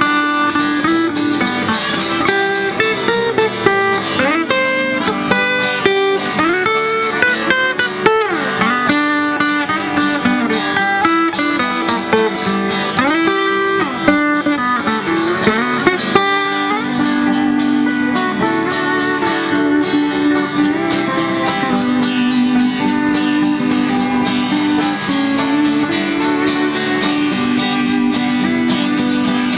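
Live country band playing an instrumental passage on strummed acoustic guitars and banjo, with a lead line of sliding, bending notes through the first half that gives way to steadier held notes.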